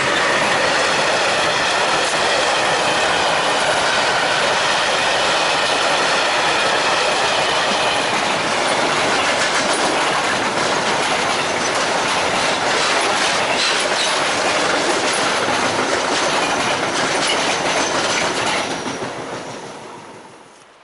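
Freight wagons of an electric-hauled goods train rolling past at speed close by: a steady loud rumble and clatter of wheels on the rails with a thin wheel squeal, fading away over the last couple of seconds as the end of the train passes.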